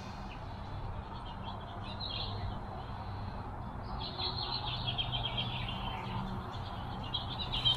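Birds chirping in short high clusters, about two seconds in and again from about four to six seconds, over a steady low hum.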